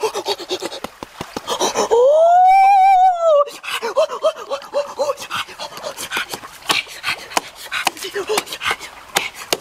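A long, wavering vocal exclamation of wonder, rising and then falling in pitch, followed by a few short yelps. Around it run many sharp clicks and knocks.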